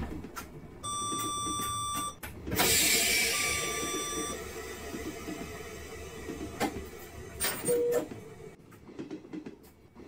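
A train's electronic warning tone sounds for about a second. A burst of hissing air follows, with a shorter repeat of the same tone, and a brief lower beep comes near the end.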